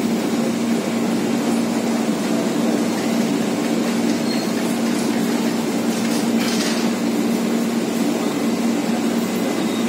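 Passenger train coaches rolling slowly past along a station platform, with a steady low hum over the running noise and a brief hiss about six and a half seconds in.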